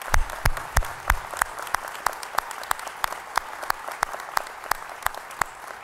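Audience applause, with one person's hand claps close to the podium microphones standing out at a steady pace of about three a second, loudest in the first second and easing off near the end.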